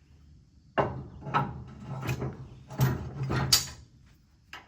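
Metal parts being handled: four or five short scraping, clattering bouts in a row, as pieces are slid and shuffled against each other.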